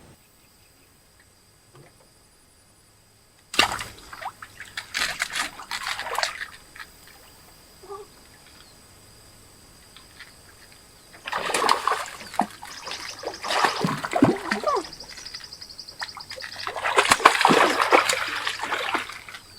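Water splashing and sloshing in three irregular spells, starting suddenly about three and a half seconds in, after a quiet opening.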